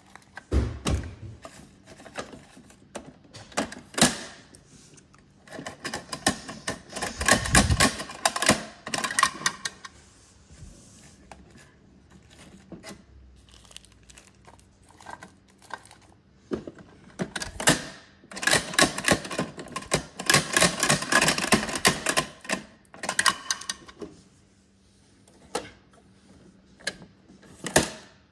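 Hard plastic parts of a toy garbage truck and its bins being handled: scattered clicks and knocks, with two runs of rapid clicking a few seconds long, about a quarter and two thirds of the way through.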